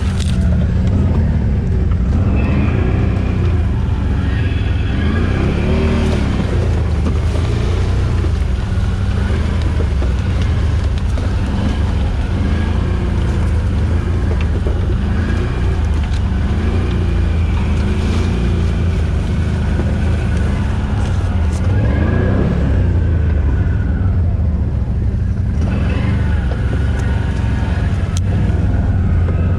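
Can-Am Outlander 1000 XMR ATV's V-twin engine running under load throughout, its revs rising and falling again and again as the throttle is worked.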